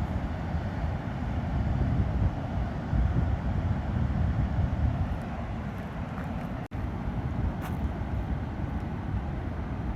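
Bow River rushing: a steady roar of flowing water, heavy in low rumble, with wind buffeting the microphone. The sound cuts out for an instant about two-thirds of the way through.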